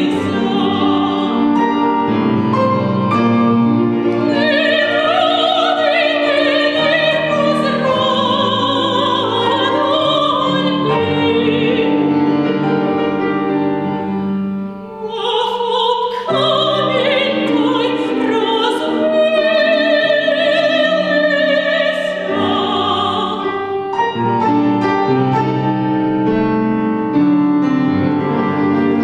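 Woman singing in classical operatic style with a wide vibrato and long held notes, accompanied by a Seiler grand piano. The voice drops out briefly about halfway through, then comes back in.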